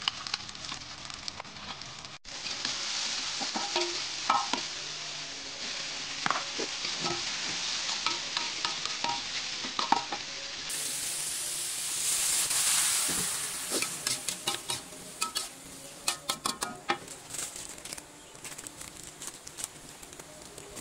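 Green beans, quail eggs and meatballs sizzling as they are stir-fried in a metal wok, the metal spatula scraping and clinking against the pan in repeated strokes. Past the middle the sizzle quietens while the spatula strokes keep clicking quickly.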